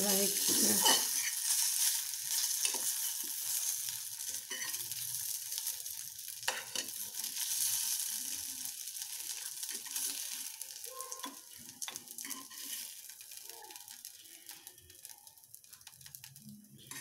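Spoon scraping and lifting steamed rava idlis out of a hot aluminium pressure-cooker pan, over a steady high sizzle from the hot pan that fades over the second half.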